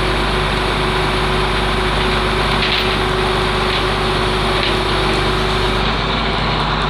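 Flatbed tow truck's engine running steadily to power the bed and winch, which are pulling a heavy toolbox up onto the deck. A few faint ticks come about a second apart midway.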